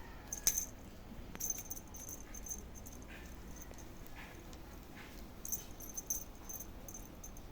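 A small jingle bell ringing in short, irregular bursts as a kitten plays with it.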